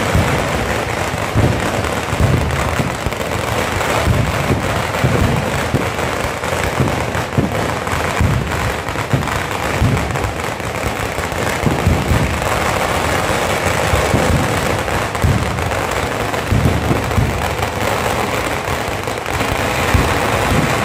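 Fireworks going off at ground level in a continuous, rapid crackle of many small bangs, with no break.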